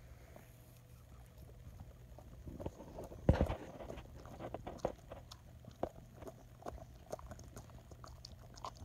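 A dog chewing and licking after eating catnip off the carpet: scattered small wet mouth clicks, with one louder rustling thump about a third of the way in.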